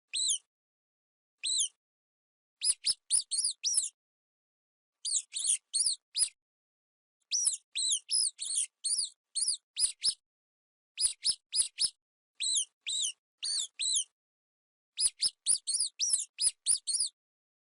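Mice squeaking: short, high-pitched squeaks in quick clusters of two to six, with clean silences between the clusters.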